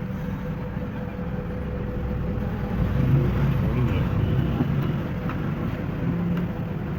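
Steady low rumble of road traffic, a little louder in the middle, with faint voices.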